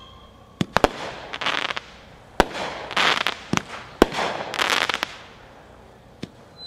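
Phantom Walloping Warheads Premier firework cake firing: sharp reports from launches and breaks, with three half-second spells of crackling from the shells' crackle effects.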